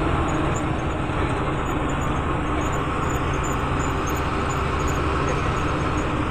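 Tourist bus driving, its engine and road noise heard steadily from inside the cabin.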